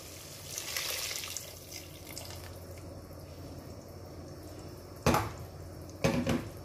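Hot water poured from a kettle into a pot of simmering vegetables, splashing in the first couple of seconds and then running on as a softer, steady trickle. Two short, louder knocks come about five and six seconds in.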